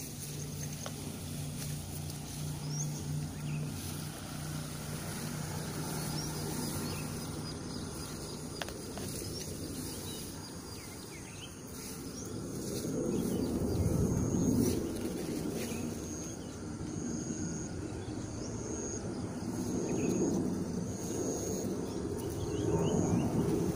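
Outdoor garden ambience with wind gusting on the phone microphone, a steady low hum through the first ten seconds or so, and a short high call repeated about once a second near the end.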